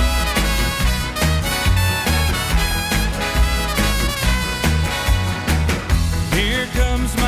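Upbeat brass-led dance music with a steady beat; a singing voice comes in near the end.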